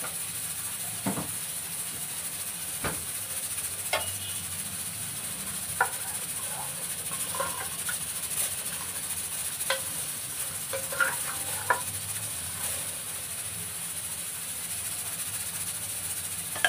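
Meat and masala sizzling steadily in hot oil in an open pressure cooker pot, with a wooden spoon knocking and scraping against the pot a few times while it is stirred.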